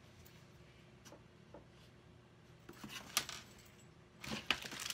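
Faint, sparse rustles and light taps of a pair of fabric gloves and their packaging being handled at an open cardboard box, a little louder about three seconds in and again near the end.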